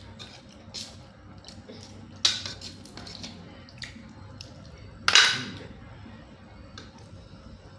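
Cockle shells and tableware clicking and clinking as the shellfish are handled, with two sharp, louder clacks about two seconds in and about five seconds in.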